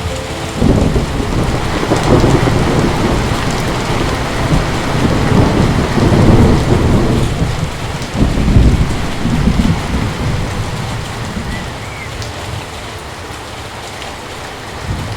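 Heavy rain falling steadily, with a long roll of thunder that starts about half a second in, swells several times and fades away over about ten seconds.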